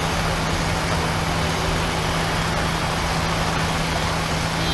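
Steady road traffic noise: vehicle engines running with a constant low hum, even and unbroken throughout.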